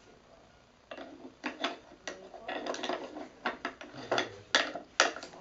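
Wooden play-kitchen pieces clacking and scraping as a toy knife and spoon are knocked and stirred against a toy bowl and toy food: irregular sharp knocks starting about a second in, with a scraping run in the middle and two louder clacks near the end.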